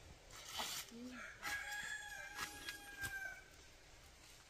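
A rooster crowing: one long call held for about two seconds, starting about a second and a half in. A short rustling noise and a few sharp clicks come before and during it.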